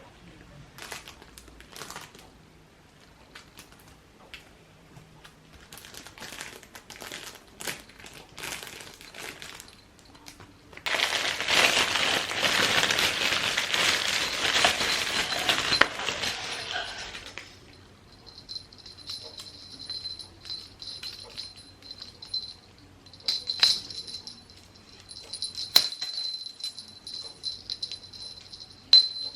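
Cat toy sounds: light clicks and taps, then a hard rattling shake for several seconds, then a thin, high, steady ringing broken by sharp clicks.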